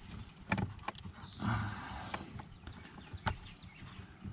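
A handful of small clicks and a brief scraping stretch about a second and a half in: a screwdriver backing a small screw out of the plastic blend door actuator linkage, and the loose screw being handled.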